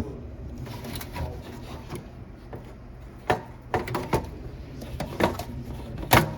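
Handling of a Mitel CX controller's cover as it is slid and pushed back into place: a few separate sharp knocks and clicks with some rubbing in between, the loudest knock near the end.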